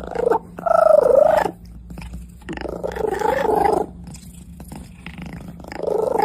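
A cat yowling: three drawn-out calls whose pitch wavers up and down, about a second or more each.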